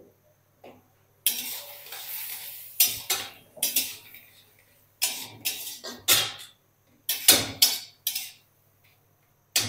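Metal spatula clanking and scraping against a steel wok as chicken cubes frying in oil are stirred and turned. There is a long hiss about a second in, then a string of separate sharp clanks.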